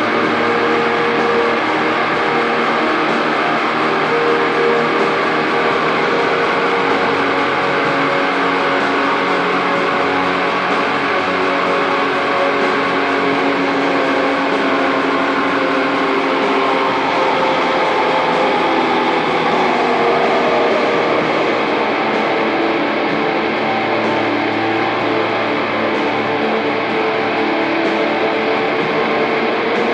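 Atmospheric black metal: a dense, steady wall of distorted electric guitars with held notes, and a lead line sliding down in pitch about two-thirds of the way through.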